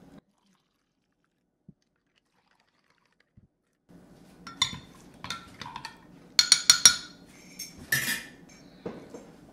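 Metal spoon stirring and clinking against glass measuring cups, starting about four seconds in after dead silence, with a quick run of sharp clinks about halfway through and a short scrape near the end.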